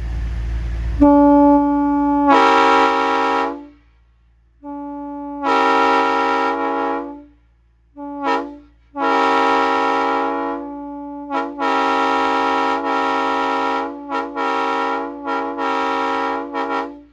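Multi-chime train air horn blowing a series of blasts. The first opens on a single note before the full chord comes in; then come another long blast, two short toots, a long blast, and a run of long and short blasts toward the end.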